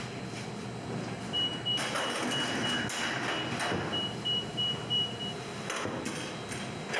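An electronic beeper sounding a quick string of short, high, single-pitch beeps, about three a second for some four seconds, over a steady machinery hum with a few clatters of pans and equipment.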